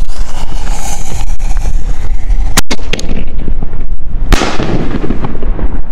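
A 6-inch aerial firework shell's fuse sputters and hisses, then the shell lifts out of its mortar tube with a sharp crack about two and a half seconds in. It bursts with a louder blast and a trailing rumble a little over a second later. Wind buffets the microphone throughout.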